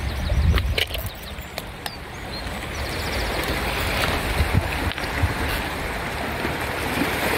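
Small sea waves washing over a stony shore, growing louder over the last few seconds. Wind buffets the microphone at the start, and a few sharp clicks of stones sound about one to two seconds in.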